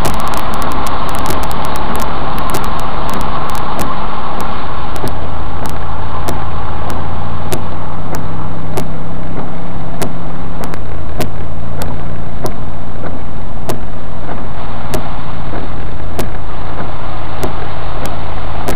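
Vehicle driving through floodwater on the road, heard from inside: a rush of water spraying up from the tyres for about the first four seconds that then fades, with the engine running steadily underneath. Frequent sharp ticks run throughout.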